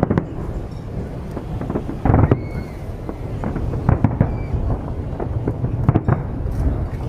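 Aerial fireworks display: a rapid series of bangs and crackles over a constant low rumble, with a heavier cluster of bursts about two seconds in.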